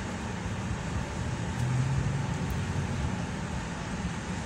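Freight train cars rolling past: a steady rumble of wheels on rail that swells briefly about two seconds in.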